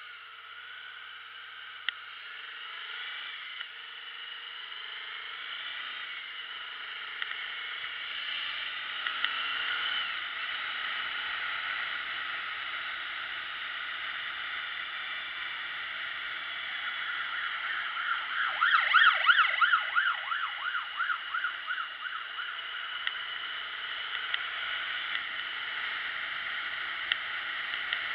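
Motorcycle ride heard from an on-board camera, engine and wind muffled to a thin band of sound. It grows louder as the bike pulls away from the lights and gathers speed, then runs steadily. About two-thirds of the way through there is a loud fluttering burst lasting a couple of seconds.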